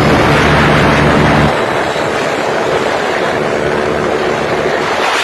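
Small motorcycle engines running at speed, with heavy wind rush on the microphone. A steady engine note drops away about a second and a half in, as if the throttle is closed, leaving mostly wind and road noise.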